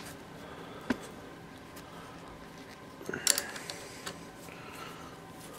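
Faint handling noises from work on a motorcycle handlebar's clutch master cylinder: a single sharp click about a second in and a brief clatter a little past three seconds, over low room hum.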